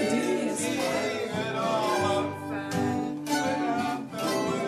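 Music: an acoustic guitar being strummed, with a singing voice.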